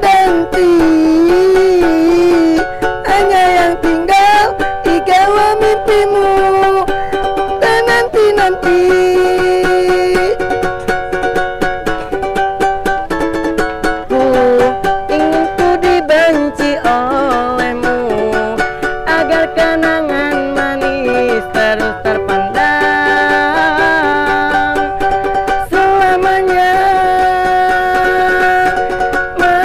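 Music: a small ukulele-sized guitar being played, with a melody line that slides and wavers in pitch like a singing voice.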